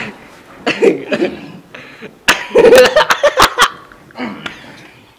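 Teenage boys laughing and snickering under their breath. A loud burst of laughter mixed with sharp clicks comes about two seconds in and lasts a second and a half.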